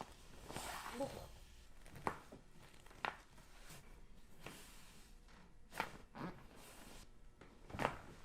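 Sharp joint cracks from chiropractic adjustments: four separate pops, a second or two apart, the last the loudest.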